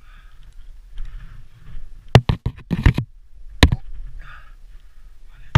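A few sharp, loud knocks and clacks: a quick cluster about two seconds in, another just before the three-second mark, and a single one a little later, over faint rumble and hiss.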